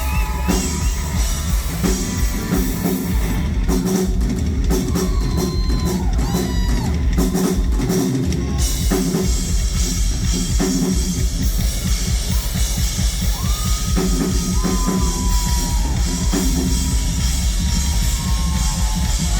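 Live country-rock band playing an instrumental passage, with the drum kit prominent (kick drum and cymbals), bass underneath, and electric guitar lines bending in pitch over the top.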